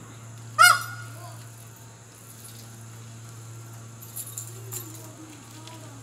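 A peacock (Indian peafowl) gives one loud, short honking call about half a second in, then a fainter one just after. A few faint clicks follow later, over a steady low hum.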